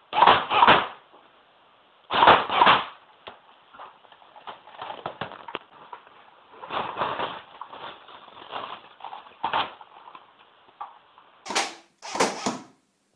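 Cybergun SIG 556 airsoft rifle firing short bursts: two loud bursts at the start, a stretch of lighter clicks and shorter bursts in the middle, and two sharper bursts near the end.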